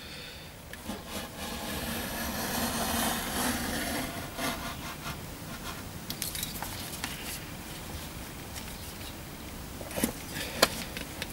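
A sharp knife blade drawn through leather along the steel back of a handsaw, a scraping, rubbing cut that is loudest in the first few seconds. Two sharp knocks come near the end.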